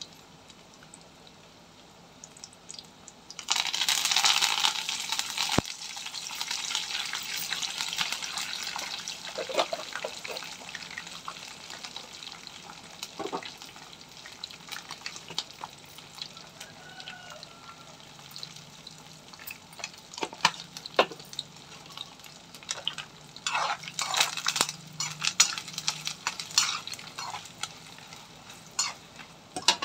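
Hot oil in an iron kadai bursts into a loud sizzle about three seconds in as green leaves go into the tempering, the sizzle slowly dying down; near the end a steel spoon stirs the pan with a run of clinks and scrapes against the metal.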